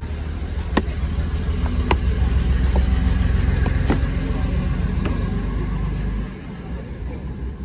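Low rumble of a motor vehicle's engine running close by, dropping away about six seconds in. A few sharp clicks and taps from the cardboard box being handled come over it.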